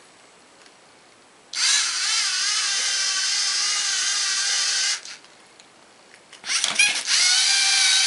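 Lego Mindstorms NXT servo motors driving the robot's wheels, whining in two runs. The first starts about a second and a half in and stops about three and a half seconds later. The second starts about six and a half seconds in, rising in pitch as it spins up.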